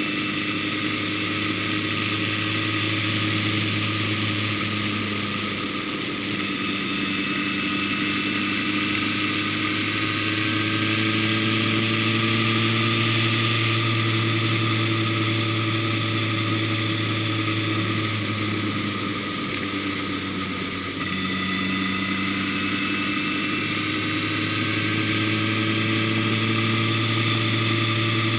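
Vehicle engine running steadily at cruising speed, its pitch drifting slowly up and down, under a high hiss that stops suddenly about halfway through.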